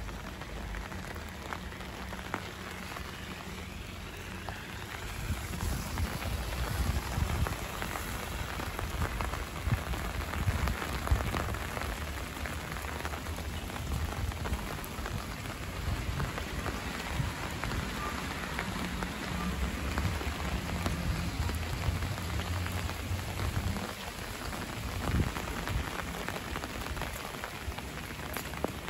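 Steady rain falling on wet pavement and surroundings, an even hiss of patter, with an uneven low rumble beneath that grows a little louder about five seconds in.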